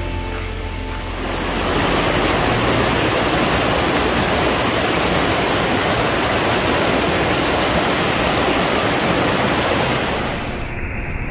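Rushing water: a steady, loud hiss that starts about a second in and cuts off suddenly near the end.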